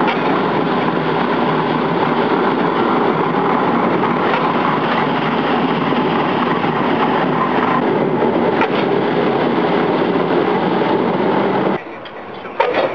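Steam from a replica Newcomen atmospheric engine venting in a loud, steady hiss that stops suddenly near the end. A short sharp knock follows.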